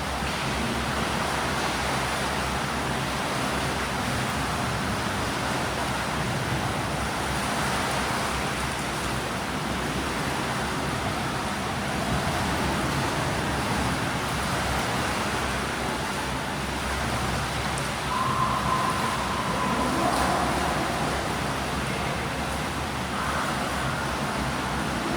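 Steady wash of splashing and churned water in an indoor swimming pool as swimmers do breaststroke drills, with a brief thin tone about three-quarters of the way through.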